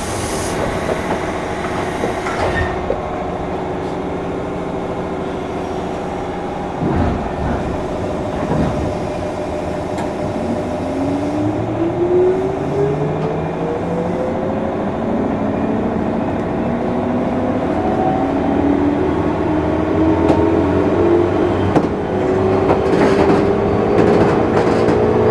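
Motors and WN-drive gears of a JNR-built 201 series electric train, heard from inside a motor car. About ten seconds in, a whine begins to rise steadily in pitch and keeps rising as the train picks up speed.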